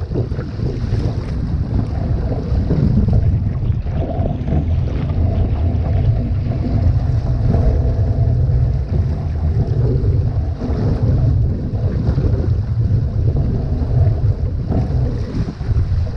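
Wind buffeting the microphone of a camera on a one-person outrigger canoe (OC-1), over water rushing and splashing along the hull as it runs downwind through chop. A steady, loud rumble with no clear single events.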